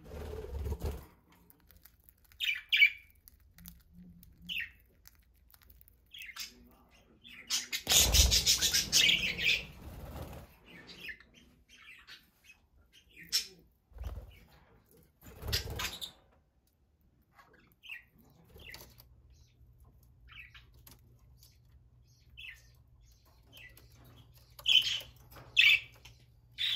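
Pet budgerigars chirping in short scattered calls, with a louder flurry of wing flapping lasting about two seconds roughly a third of the way in and two brief flutters after it. A faint steady low hum comes in past the middle.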